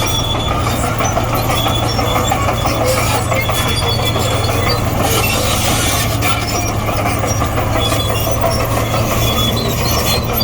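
Komatsu D58E crawler bulldozer's diesel engine running steadily under load, with scattered short squeaks and clinks from its steel tracks.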